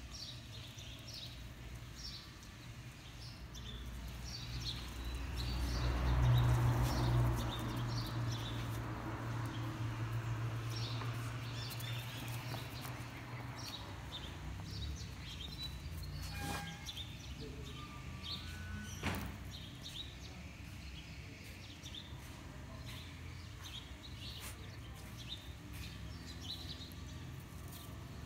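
Small birds chirping in short, high calls scattered throughout, over a low rumble that swells about six seconds in and dies away by about fourteen seconds. A single sharp click sounds about nineteen seconds in.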